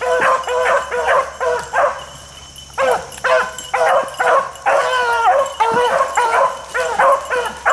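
Hunting beagles baying on a trail: a steady run of overlapping bawling calls, several a second, with a short lull about two seconds in.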